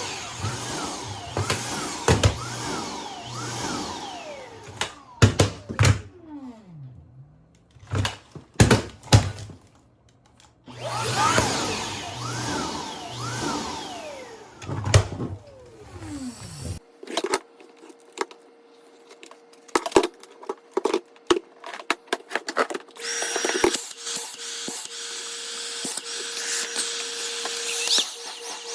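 A vacuum cleaner running, its motor pitch rising and falling as it is pushed about, with sharp knocks and two brief stops. From about halfway on there is a quieter run of scattered clicks and knocks over a faint steady hum.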